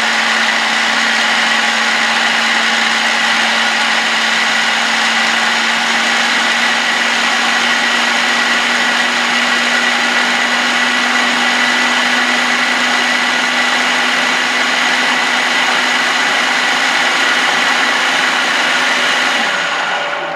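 Food processor motor running steadily at full speed, its blade puréeing sliced strawberries, sugar and citrus juice into a smooth cream: a steady hum with a high whine over it. It switches off near the end.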